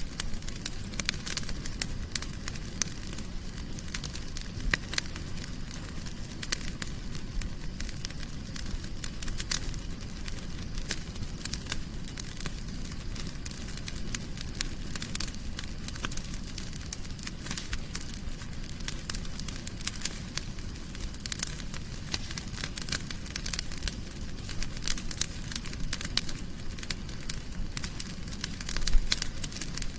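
Wood fire burning in a fireplace, crackling with many sharp irregular pops and snaps over a steady low rumble of flame, with a brief flurry of louder pops near the end.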